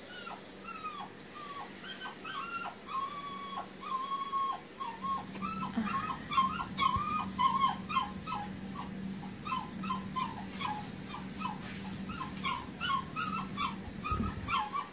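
Young kitten crying in distress: a long run of short, high mews, many falling in pitch, coming faster and louder from about a third of the way in, as forceps pull a bug from its nose.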